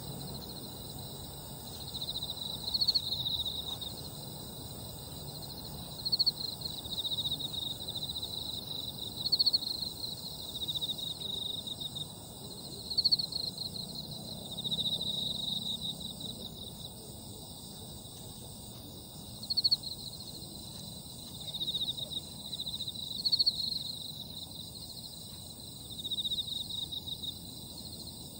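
Summer-night insect chorus in grass: a steady high-pitched shrill from many insects, with a nearer insect's pulsed chirping phrase of a second or two repeating every few seconds.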